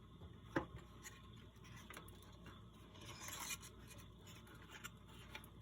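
Faint bench handling sounds over a near-silent room: one sharp click a little after the start, then a soft brief scraping about three seconds in, with a few light ticks.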